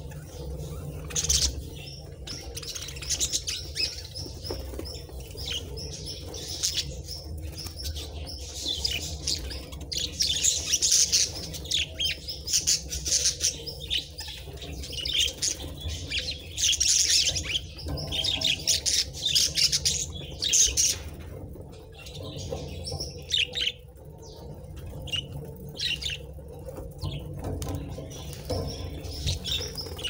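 A flock of budgerigars chattering and chirping while they feed, a dense busy warble that thins to scattered chirps for the last third.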